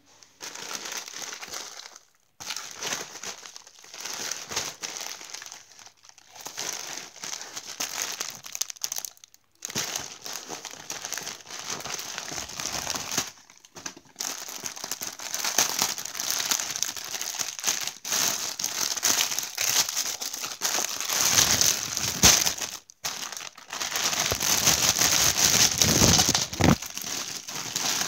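Plastic packaging crinkling as hands handle and open a plastic mailer bag and the clear plastic bags around small plush toys, in bursts broken by short pauses.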